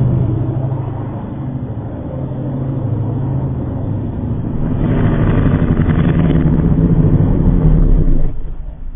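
Car engine running under acceleration, its low note building from about halfway in and dropping away suddenly near the end.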